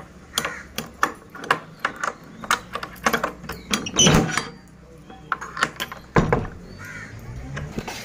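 A key unlocking a small padlock on a door hasp, the keys and lock clinking, then the iron hasp and bolt rattling as the door is unbolted. It comes as a quick run of metallic clicks and knocks, with the loudest clunks about four seconds in and about six seconds in.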